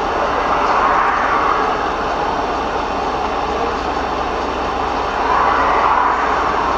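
Steady road and traffic noise recorded by a dashcam inside a car moving slowly in traffic, a continuous rush that swells about a second in and again near the end.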